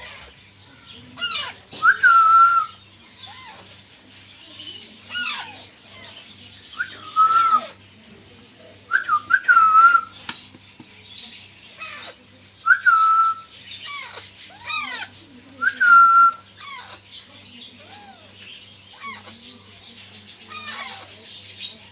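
Alexandrine parakeet chicks calling: short whistle-like calls repeated every second or two, some held briefly on one note and others sweeping sharply down in pitch.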